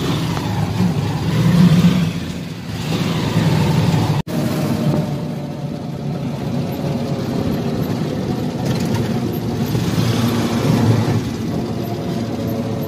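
Auto-rickshaw engine running while under way, heard from inside the open cabin, its note swelling and easing with the throttle. The sound drops out for an instant about four seconds in.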